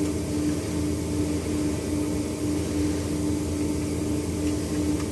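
Steady machine hum with a constant mid-pitched tone over a low drone.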